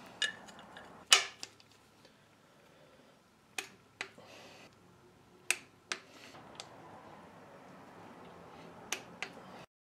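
Scattered sharp metallic clicks and clinks, about ten spread over several seconds, as a steel engine-mount bracket and its bolts are handled and fitted against a BMW M10 engine block.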